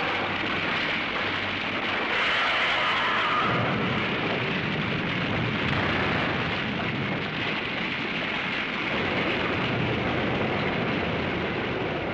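Continuous rushing, rumbling noise of a sound effect for an eruption of smoke and steam in a monster battle. It hisses at first and turns into a deeper rumble a few seconds in.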